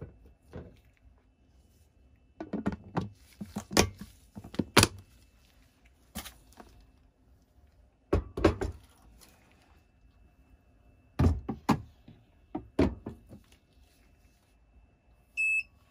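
Hard plastic knocks and clunks in short clusters as the wash container with its basket and lid is handled and set down on the Anycubic Wash & Cure 2.0 station and its cover is put over it. A short electronic beep near the end.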